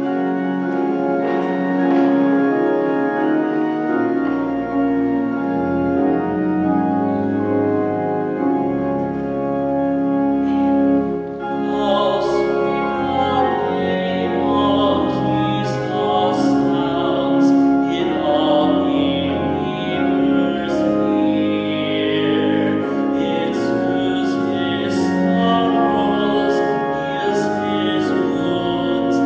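Church organ playing slow, sustained chords, with deep pedal bass notes coming in about four seconds in. From about twelve seconds in, a solo voice sings along with it.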